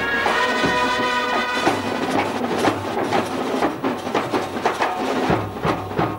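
Live band music: held melody notes for the first couple of seconds, then drums take over with quick, uneven beats, several a second.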